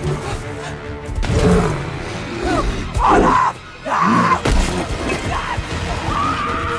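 Film soundtrack: dramatic score music with a sudden crash a little over a second in, and short pitched cries over it.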